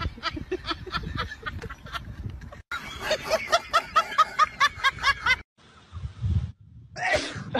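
A person snickering with rapid, repeated bursts of laughter for about five seconds, with a short break in the middle. After a sudden cut there is a brief low rumble.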